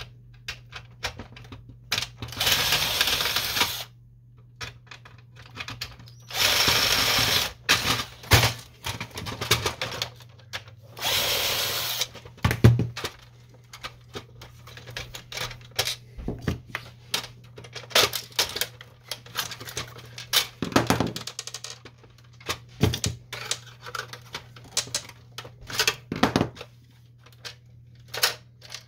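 Cordless electric screwdriver running in three short bursts of one to two seconds each, driving screws out of the Canon Pixma MG5520 printer's frame. After the bursts come scattered clicks and knocks of the printer's plastic parts being handled and pried apart.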